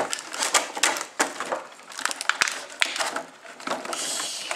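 Thin clear plastic blister packaging crackling and crinkling as it is pressed and flexed by hand to pop toy figures out, with irregular sharp clicks and snaps and a brief rustle near the end.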